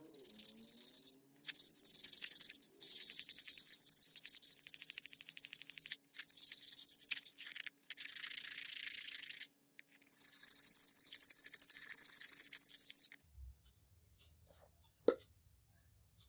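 Rubbing or scraping by hand in several separate stretches, a hissy scratching sound that in places breaks into rapid fine strokes, over a faint steady hum. It stops about three seconds before the end, leaving only a few faint clicks.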